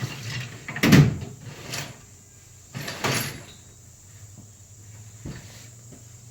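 Sharp knocks about a second in and again near 1.7 s, then a short clatter around 3 s and a faint knock later: hand tools knocking against metal in the engine bay.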